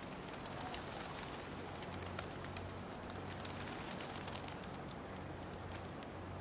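Pigeons, with a dense flurry of short sharp clicks over a steady low hum; the clicks thin out near the end.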